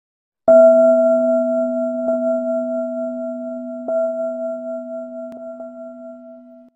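A struck metal bell ringing with several steady tones that slowly fade. It is struck about half a second in and again, more lightly, just before 4 s, and cuts off suddenly near the end.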